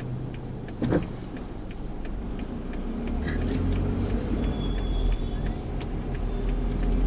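Cabin sound of a Toyota Isis 2.0 driving slowly through town: a steady low engine and road rumble that grows louder over the first few seconds as the car picks up speed through a turn, with a regular light ticking throughout and a brief sharp sound about a second in.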